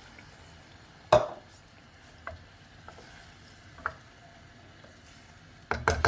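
A spoon knocking against a cooking pot while a curry is stirred: one sharp knock about a second in, a few lighter taps, then a quick run of knocks near the end, over a faint sizzle.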